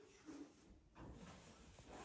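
Near silence: faint room tone, with a couple of very faint brief sounds.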